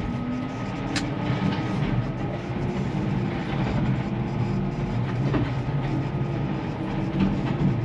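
Telehandler's diesel engine running steadily under way, with a single sharp knock about a second in.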